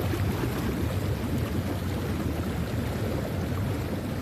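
Pool water splashing and churning: a steady wash of water noise as children move about in a shallow swimming pool.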